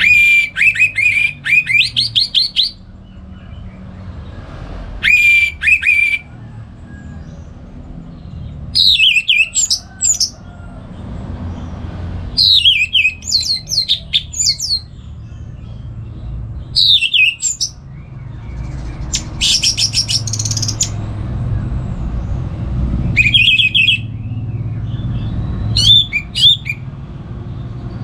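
Orange-headed thrush singing loud, varied phrases of rapid trills and sharply falling whistles, each a second or two long with short pauses between. A steady low rumble runs underneath.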